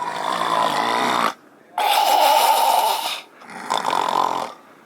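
A man imitating loud, congested snoring: three long rasping snores through a blocked nose, the sound of someone with a bad cold who can't breathe.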